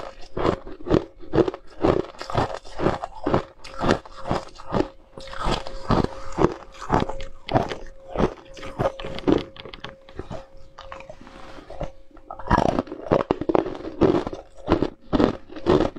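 Hard ice cubes being bitten and chewed close to the microphone: repeated sharp crunches, about two to three a second. The crunching eases for a few seconds and comes back loud near the end.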